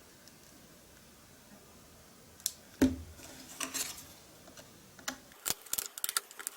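A tablet's plastic back cover being handled and pried at: a knock about three seconds in, then a run of sharp plastic clicks.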